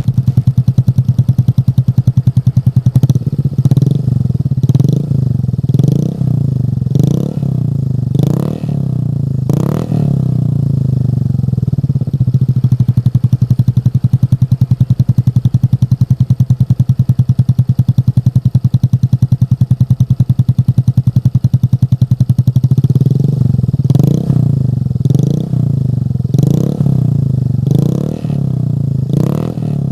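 Motorcycle engine through an aftermarket racing exhaust, loud and steady at idle. It is revved in short blips about once a second for several seconds, settles to idle for about ten seconds, then is blipped repeatedly again near the end.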